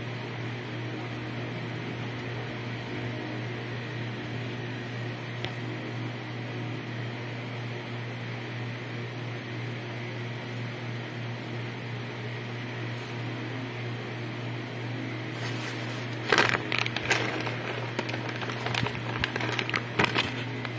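A steady low hum runs throughout. Over it, from about three quarters of the way in, come a cluster of sharp clicks and rustles from a hand handling the recording phone.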